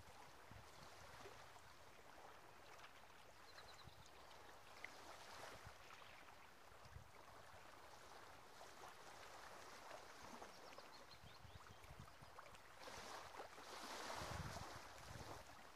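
Faint wash of small waves lapping on a sandy, stony seashore, rising and falling irregularly and swelling louder for a couple of seconds near the end.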